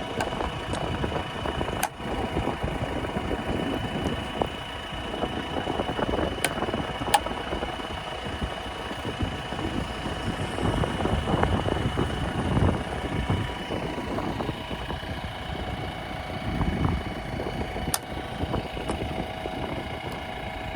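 Diesel engines of a backhoe loader and a tractor running steadily during soil loading, with a steady high whine and a few sharp knocks.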